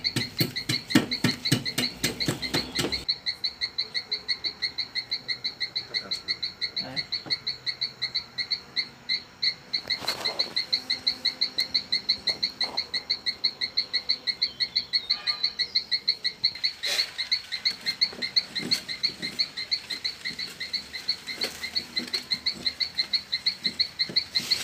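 A frog calling steadily, a rapidly repeated high chirp of about four to five pulses a second. A lower, coarser pulsing runs in the first three seconds, and a couple of short scraping knocks come about ten and seventeen seconds in.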